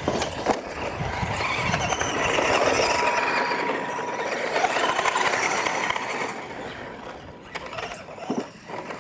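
Radio-controlled scale trucks racing across a dirt course over ramps and plastic car-body obstacles: motors and drivetrains whining, with tyre noise and a few knocks as they strike the obstacles. The sound grows weaker over the last few seconds.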